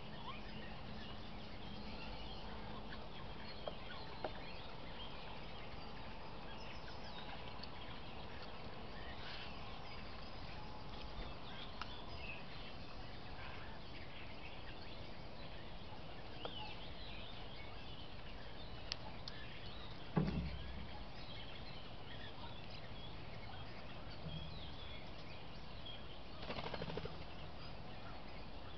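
Steady hiss of a trail camera's microphone in a winter wood, with faint scattered bird chirps. A dull thump about twenty seconds in, and a brief rapid flutter of soft pulses near the end.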